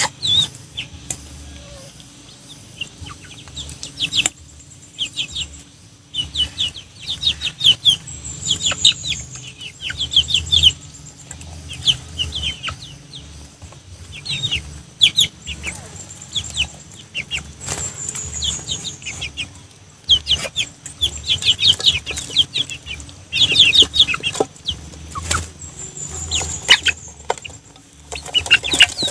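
Young chickens clucking in quick bursts of short calls as they feed from a shared bowl.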